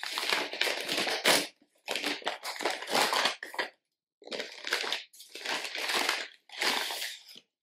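A white paper mailing envelope being torn open by hand, the paper ripping and crinkling in about five bursts with short pauses between them.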